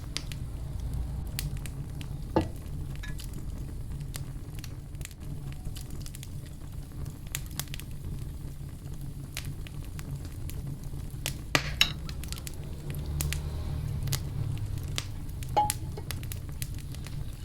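Chicken wingettes being stirred through a wet, sticky marinade of barbecue sauce, honey and whiskey in a bowl: squishing and stirring with scattered sharp clicks, over a steady low hum.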